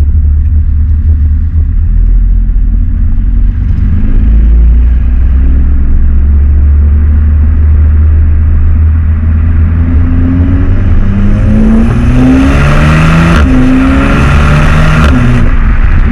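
Stock Volkswagen Golf 7 R's turbocharged 2.0-litre four-cylinder accelerating hard over a heavy low rumble. The engine note climbs and drops back several times in the last six seconds as the DSG gearbox makes quick upshifts.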